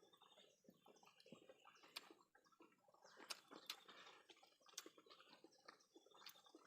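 Near silence with faint, scattered clicks and smacks of someone eating fish with their mouth and hands.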